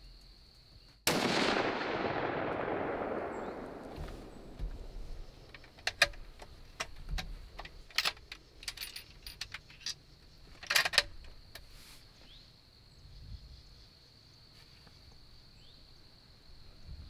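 A single .243 hunting rifle shot about a second in, its report rolling away and fading over about three seconds, followed by several short sharp clicks and rattles.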